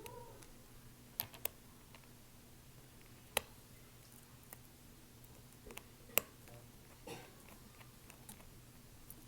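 A few scattered sharp clicks and taps, the kind small repair tools and phone parts make when handled on a work surface, over a faint steady low hum.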